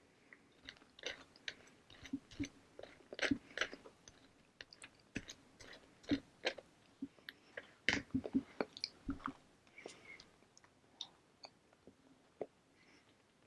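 Close-up chewing and biting of buttered bread: a string of short, irregular mouth clicks, densest in the middle and thinning out near the end.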